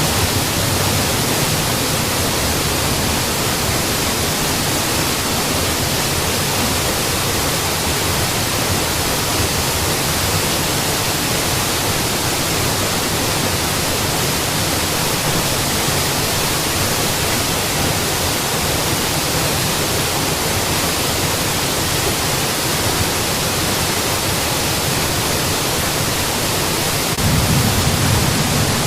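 Mountain waterfall: a steady rush of falling water, spread evenly from deep to high. Near the end the low rumble grows fuller and a little louder.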